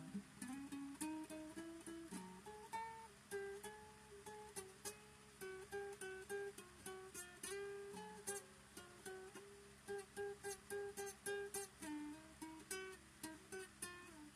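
Solo acoustic guitar playing a picked, single-note rag-style melody, the notes plucked one after another in quick, even runs.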